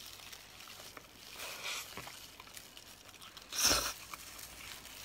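Close-up eating sounds of a person biting and chewing the meat off a garlic chicken wing: soft wet mouth noises, with one louder short burst about three and a half seconds in.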